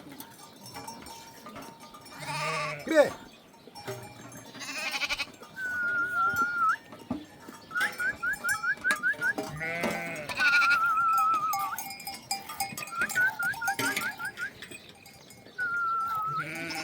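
Sheep and goats bleating, with a thin, high, wavering whistle and quick rising chirps repeating between the bleats.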